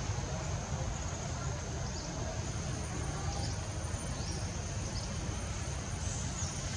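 Steady high-pitched drone of insects, with a second thin, higher insect tone joining about two and a half seconds in, over a steady low rumble.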